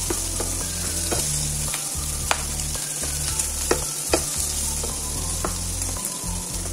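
Pork belly, onions, garlic and tomato sizzling in a frying pan as a wooden spatula stirs them, with scattered light taps of the spatula against the pan and a few sharper knocks between about two and four seconds in.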